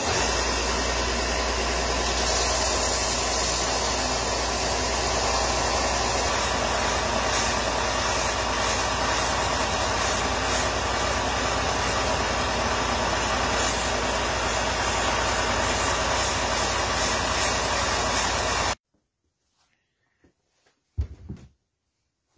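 Ryobi belt and disc sander running steadily as a cedar piece is held to it to round its corners. The machine noise cuts off suddenly near the end, followed by a couple of faint knocks.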